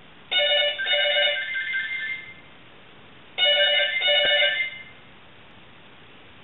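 Two home phones ringing together with an electronic ring, several steady tones at once, in two rings about three seconds apart.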